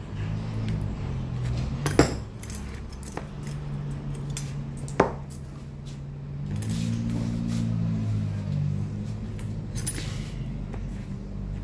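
Steel cuticle nippers and hand tools clinking and clicking against a metal workbench, with two sharp metal clicks, over a steady low machine hum. About six seconds in comes a short hiss from an aerosol spray can.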